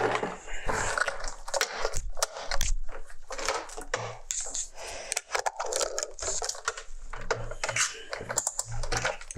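Irregular clicking and clattering of a multimeter and its test leads being taken out and handled on a workbench.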